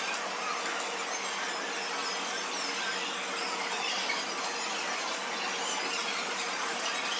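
Espresso machine steam wand frothing milk: a steady hiss with high squealing.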